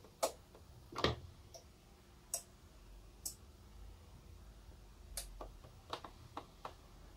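Faint, irregular sharp clicks and taps, about nine over several seconds and unevenly spaced, over a quiet hiss.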